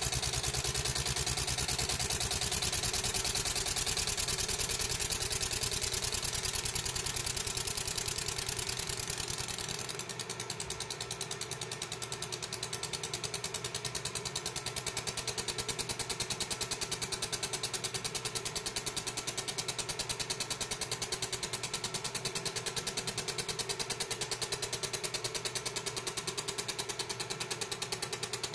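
A 30-watt fiber laser engraving ceramic tile, its scanning head making a fast, even buzzing rattle over a steady hum. About ten seconds in, the hiss drops away and it gets a little quieter.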